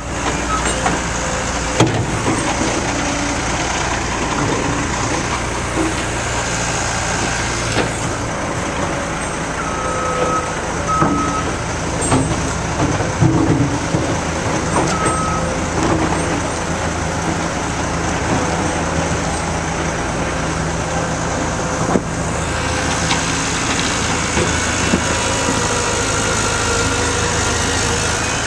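Cat skid steer's diesel engine running steadily as the machine works, its note shifting a couple of times. The reversing alarm beeps briefly a few times, about a third of the way in and near the middle, with occasional clanks.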